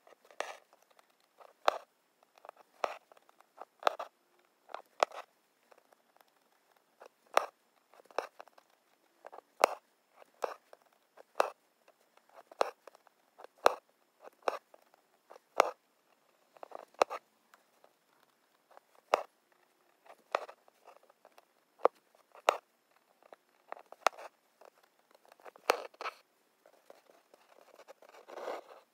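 Embroidery needle pricking through linen stretched taut in an embroidery hoop, with thread drawn through: short, sharp scratchy taps about once a second, and a longer rasp near the end.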